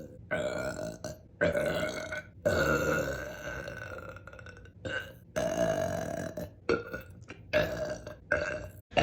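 A woman belching, a run of about seven burps, with a long drawn-out one of nearly three seconds in the middle and shorter ones before and after.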